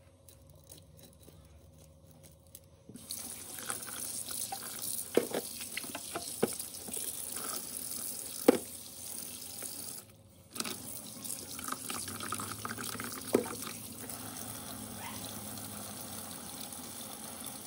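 Kitchen tap running into a stainless steel sink, turned on about three seconds in and briefly cut off around the middle, with a few sharp knocks as the fish are handled over it.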